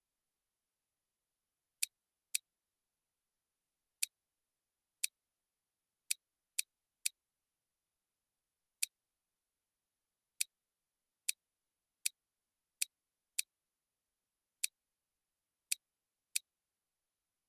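Computer mouse clicking: about sixteen single sharp clicks at uneven intervals, with silence between them.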